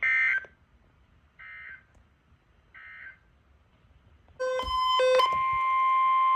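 Three short bursts of EAS (SAME) digital data squawk, the end-of-message code closing a weather radio warning: the first loud, the next two fainter, about 1.4 s apart. Then two quick electronic beeps, and about five seconds in the steady NOAA Weather Radio alert tone begins and holds, announcing the next warning.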